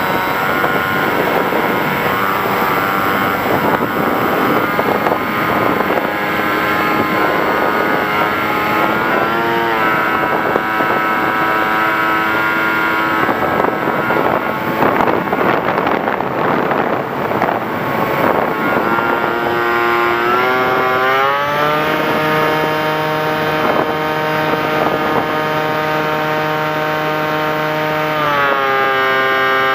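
Electric motor and propeller of an FPV Raptor radio-controlled plane in flight: a steady whine that rises in pitch several times as the throttle is opened, over a rushing noise that is strongest in the first half.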